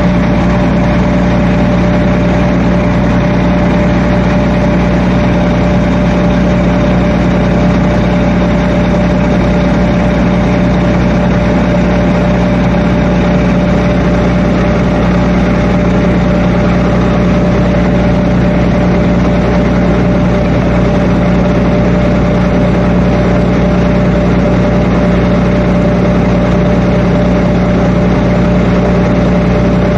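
Atlas Copco XRVS 976 diesel portable air compressor running at a steady speed. It is a loud, even drone with a steady hum that does not change.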